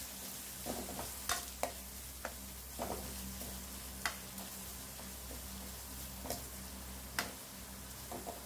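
Sliced onions sizzling in hot oil in a metal kadai while a steel ladle stirs them, scraping and clinking against the pan every second or so. The onions are being sautéed until they change colour.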